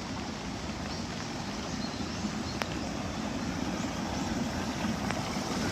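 Steady rain falling, a constant even hiss with a couple of faint ticks.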